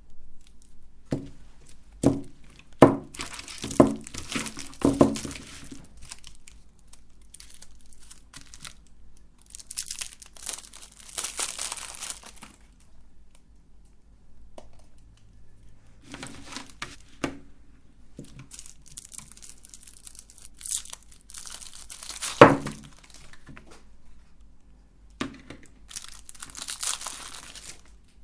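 Plastic wrappers of big lollipops crinkled and torn open in several stretches, with a run of sharp clicks and knocks in the first few seconds and one loud crack about two-thirds of the way through.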